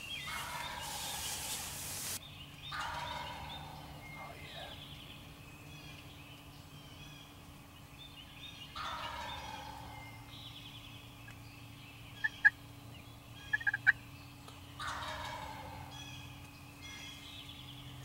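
Wild turkey gobbler gobbling four times, each gobble a rapid rattling call that falls in pitch. A few brief sharp clicks come between the third and fourth gobbles, the loudest sounds in the stretch.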